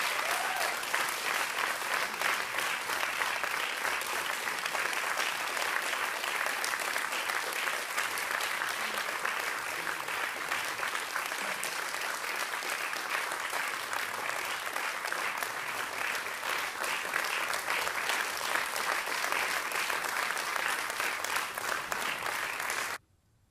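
Audience applauding steadily in a hall, a dense patter of many hands clapping, which cuts off suddenly near the end.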